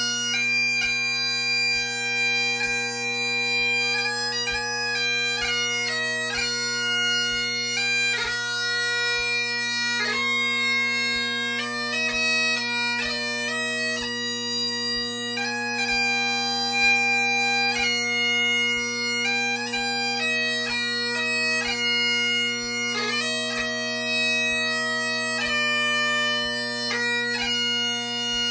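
Great Highland bagpipes playing a melody on the chanter over steady, unbroken drones, the tune broken up by quick grace-note flicks between notes.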